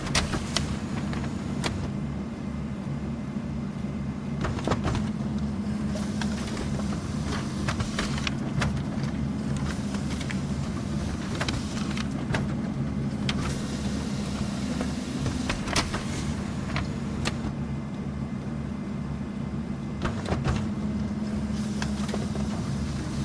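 Office printer running continuously, a steady motor hum with a fast low pulsing underneath and occasional sharp clicks from the paper-feed mechanism.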